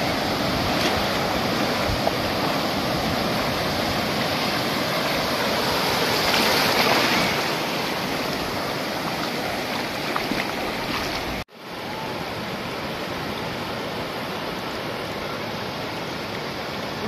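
Sea surf on a sandy beach: waves breaking and foam washing up the shore in a steady rush that swells about six to seven seconds in. It breaks off suddenly about eleven and a half seconds in and returns as a steadier, slightly quieter rush.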